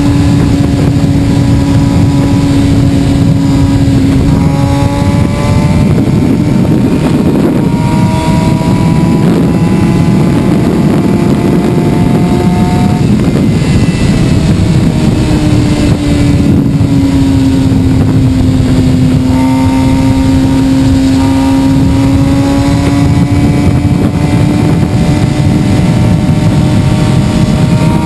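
Suzuki sportbike engine running at highway speed under a dense rushing noise. The pitch of the engine note shifts up and down a few times.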